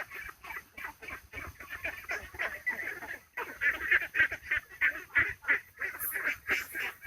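A cat making an odd, bird-like vocalisation: a fast run of short calls, about five or six a second, with a brief break about three seconds in.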